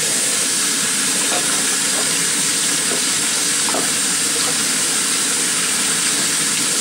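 Kitchen tap running at full flow while hands are rinsed under it: a steady, loud hiss of water that comes on suddenly, with a few faint splashes.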